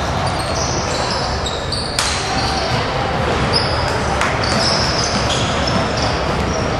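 Basketball game in a gym: the ball bouncing, sneakers squeaking on the hardwood, and players' and spectators' voices echoing in the hall, with a couple of sharp knocks about two and four seconds in.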